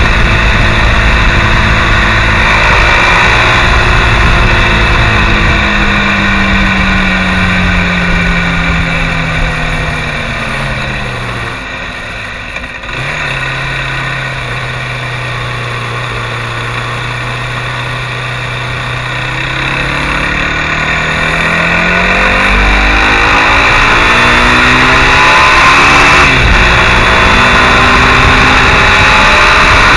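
Mondial SMX enduro motorcycle's engine while riding, with wind rush: the engine note falls as the bike slows, holds steady at low revs for several seconds, then climbs as it accelerates, dropping abruptly at a gear change about four seconds from the end.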